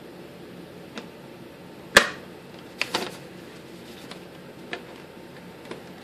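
Plastic and foam parts of a Volantex Phoenix Evolution glider's tail assembly clicking and knocking as they are handled and fitted together: a few sharp clicks, the loudest about two seconds in, then two close together about a second later.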